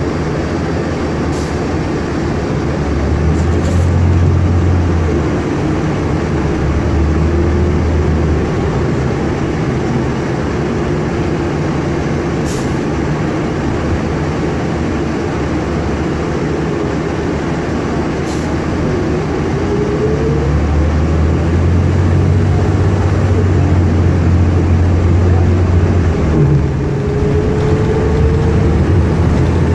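A 2012 New Flyer Xcelsior XN40 CNG bus in motion, heard from inside: its Cummins Westport ISL G engine and Allison transmission run under road noise. The engine pulls harder for a couple of seconds a few seconds in, and again through the second half, with a rising tone as the bus gathers speed. A few sharp rattles sound along the way.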